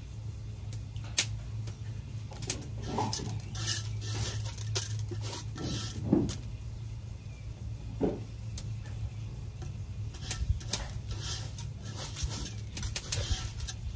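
Metal kitchen utensils clinking and scraping against pots and dishes in short, irregular knocks, over a steady low hum.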